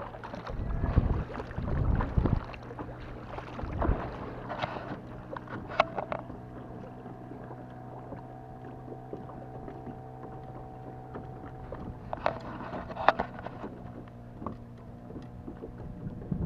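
Kayak paddle strokes splashing in the water for the first few seconds, then a steady low hum under the lapping water, broken by a few short sharp knocks.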